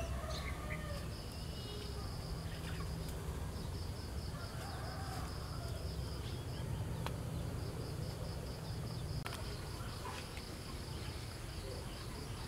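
Insects trilling: a high, rapidly pulsing chirr that breaks off briefly a couple of times, over a steady low rumble, with a few faint bird chirps.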